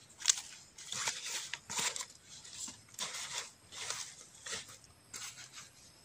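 Freshly dug bamboo shoots being packed into a black zippered nylon bag: the bag's fabric rustles and the shoots knock against each other in a run of short bursts, the sharpest a click just after the start.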